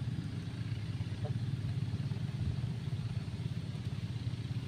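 A low, steady engine drone that holds even throughout.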